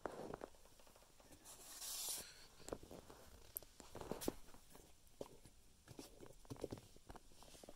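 Faint handling noise: scattered small clicks and knocks with a brief soft rustle about two seconds in, over a quiet room.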